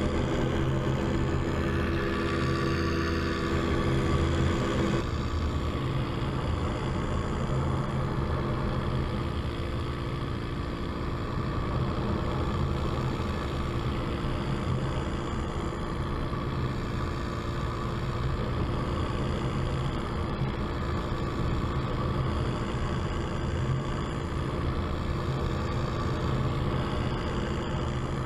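Homemade paramotor's engine and propeller running steadily in flight, its note shifting slightly about five seconds in, with wind rushing past the microphone.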